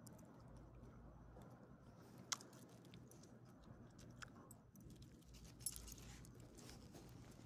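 A small dog faintly chewing a soft jerky strip treat taken from a hand, with two sharp clicks, one about two seconds in and one near six seconds.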